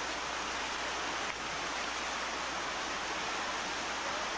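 Stream water running over rocks, heard as a steady, even hiss.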